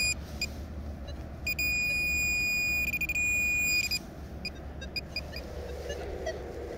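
Pinpointer probe's buzzer sounding one fixed high tone: a short beep, then a steady tone held for about two and a half seconds from about a second and a half in. A pinpointer's tone turning continuous is the sign that the probe is right on the metal target in the dug soil.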